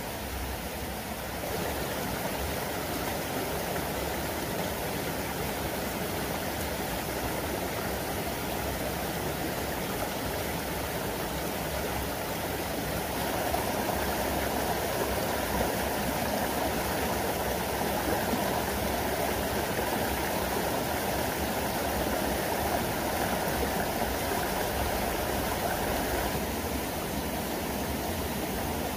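Steady rush of a shallow river running over rocks and a small waterfall. It grows a little fuller about halfway through, then eases slightly near the end.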